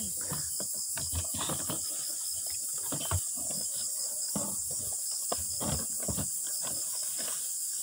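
Steady high-pitched chorus of insects, with scattered rustles and light knocks from equipment being handled in a plastic drum.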